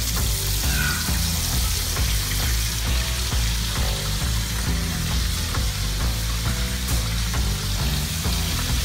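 Parmesan-crusted sea trout fillets frying in hot olive oil in a pan, a steady sizzle.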